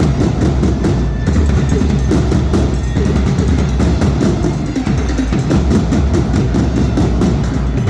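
Loud percussion-led music: a band's drums play a steady, driving beat with heavy bass drum.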